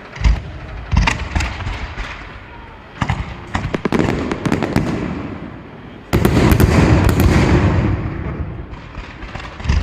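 Daytime fireworks going off: single sharp bangs, then volleys of rapid reports, and about six seconds in a dense two-second barrage of crackling and bangs, the loudest part.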